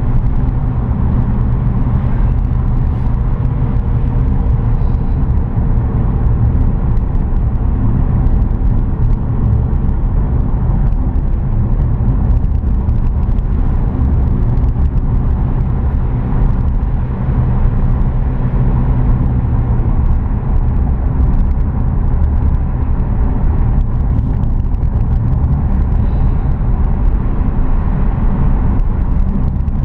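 Car driving steadily downhill: continuous engine and road noise with a deep, even rumble.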